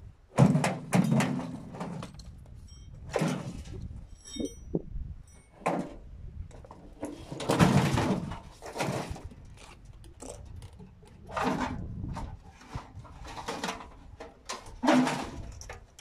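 Irregular metallic clanks, knocks and rattles from a scrap washing machine being dismantled by hand as its parts are worked loose and the steel drum is pulled out. The loudest knocks come about half a second in and again around eight seconds.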